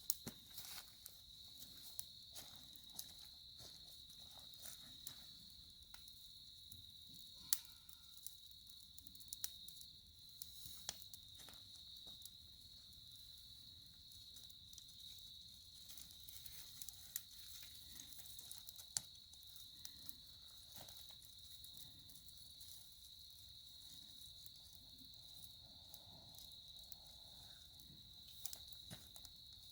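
Insects trilling steadily at one high pitch, with scattered sharp crackles and pops from a burning wood campfire.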